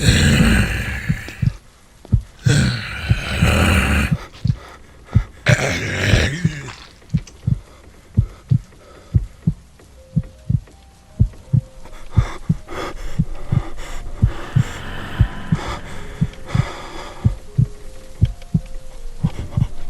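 Heartbeat sound effect: a steady run of low thumps in a regular rhythm. Loud bursts of rushing noise come over it in the first several seconds, and faint held tones sound in the second half.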